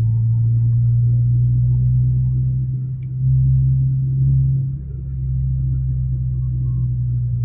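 Toyota Vios with a GReddy chambered muffler running, a steady low exhaust drone that swells for a second or so about three seconds in.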